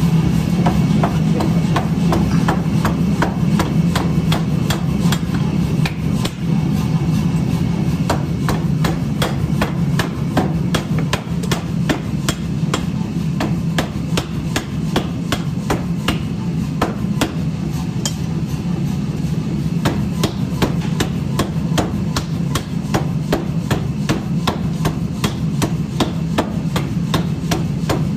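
Motor-driven power hammer forging a red-hot iron block held in tongs, striking it in rapid repeated blows over a steady low hum.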